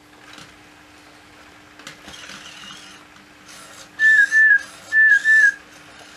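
Sony Aibo ERS-311 robot dog's motors whirring as it moves, then two pairs of short electronic chirps about a second apart, each chirp dipping in pitch at its end.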